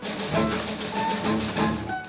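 Dramatic background score with a steady, driving percussion beat under short melodic notes.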